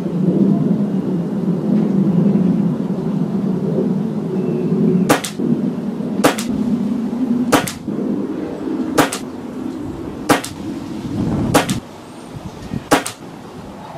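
Reximex Regime .177 PCP air rifle, fitted with a Robert Lane regulator, firing a string of seven shots about 1.3 seconds apart, each a sharp crack followed at once by a second snap. A low steady hum sits underneath and drops away near the end.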